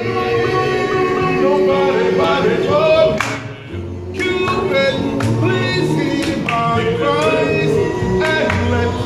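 A cappella group of men singing together in harmony, with a short break a little over three seconds in.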